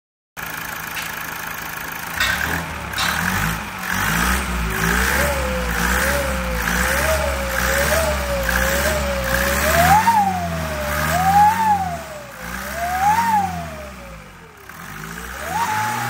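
Mazda turbocharged Skyactiv engine idling, then revved repeatedly, with an owl-like hooting whistle from the reconditioned turbo that rises and falls in pitch with each blip of the throttle. The turbo is very noisy.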